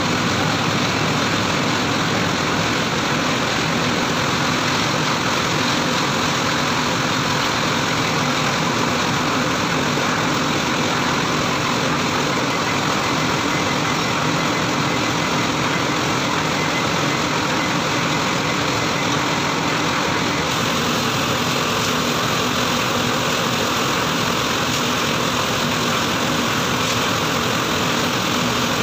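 Truck-mounted mobile crane's diesel engine running steadily as it powers the hoist holding a heavy steel section, a constant engine noise with no change in speed.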